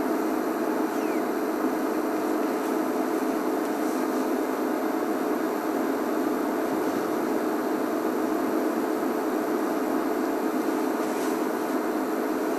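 Steady mechanical hum with a few held tones, unchanging throughout.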